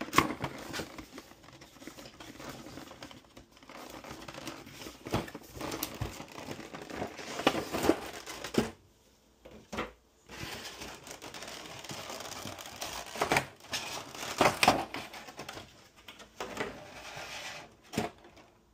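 Unboxing packaging noise: a cardboard box is opened and a clear plastic blister tray of miniatures is pulled out and handled, crinkling and crackling with irregular rustles and sharp clicks. A brief lull comes about nine seconds in.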